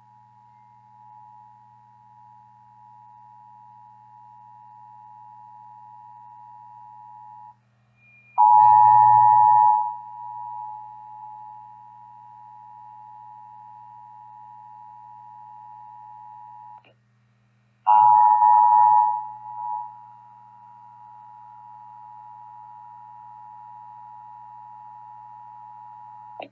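Emergency Alert System two-tone attention signal, a steady pair of tones. It breaks off briefly twice and comes back much louder each time before settling, heard off-air over a low hum.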